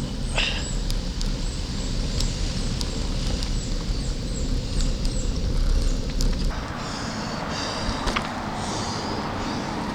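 Wind buffeting the microphone and road noise while riding a loaded touring bicycle; the low wind rumble drops away about six and a half seconds in.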